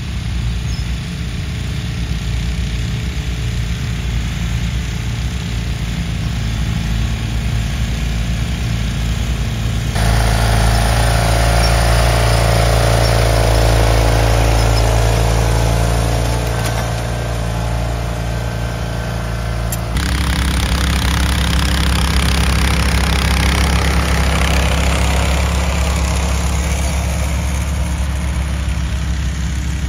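Garden tractor engine running steadily. Its sound changes abruptly twice, about a third and two thirds of the way through, each time to a different steady engine note.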